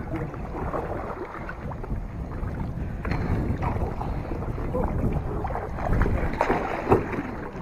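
Double-bladed paddles stroking and splashing in shallow sea water as a tandem kayak is paddled, with wind rumbling on the microphone. There are a few sharper splashes near the end.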